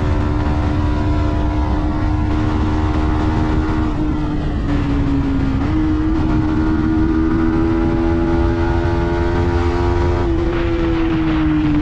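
Yamaha MT-15 V2's 155 cc single-cylinder engine and exhaust running steadily on the move, with a low rumble of wind underneath. The engine note holds near one pitch, sags about five seconds in, picks back up and climbs slowly, then dips and recovers again near the end.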